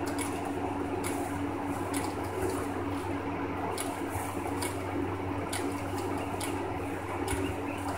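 Guinea pigs chewing and rustling dry hay: irregular crisp crackles, about one or two a second, over a steady low hum.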